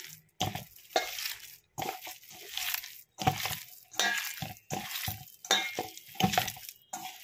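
Raw seasoned minced-meat mixture being squeezed and kneaded by hand in a steel bowl: repeated wet squishing strokes, about one or two a second, with short pauses between them.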